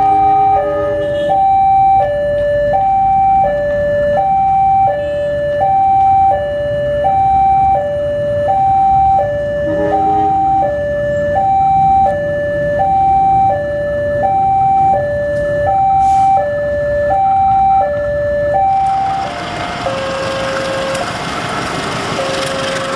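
A two-tone hi-lo warning siren, stepping steadily between a higher and a lower tone about every 0.7 seconds. About 19 seconds in it stops and gives way to the noise of a passing train with a slower, lower repeating tone.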